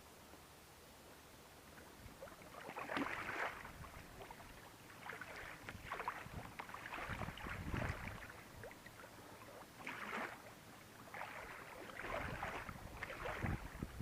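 Water splashing and sloshing around a kayak in irregular surges, about every second or two, starting a couple of seconds in.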